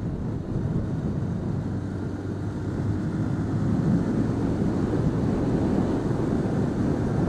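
Motorcycle ride on a Yamaha R15 single-cylinder sports bike: a steady rush of wind on the microphone over the engine's low drone, getting a little louder about halfway through as the bike passes an SUV.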